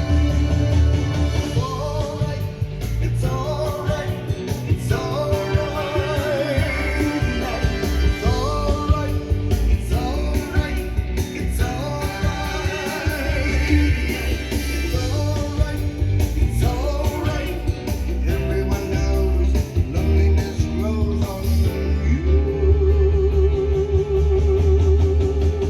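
Rock music with guitar, a steady bass and a singing voice.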